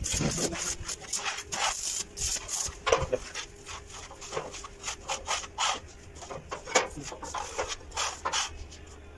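Irregular scraping, rubbing and knocking of metal as a steel round-pipe handrail is handled and fitted on a steel spiral stair.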